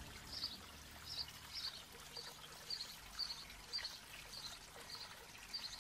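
Faint trickle of water running through hydroponic growing pipes, with a bird chirping over it about twice a second.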